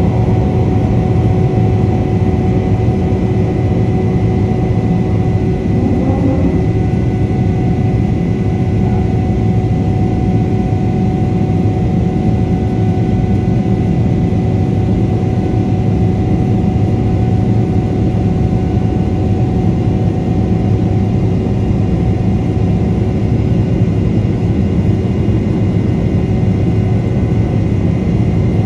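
GE90-115B turbofans of a Boeing 777-300ER in flight, heard inside the cabin at a window seat: a loud, steady low rumble with a few steady hum and whine tones over it.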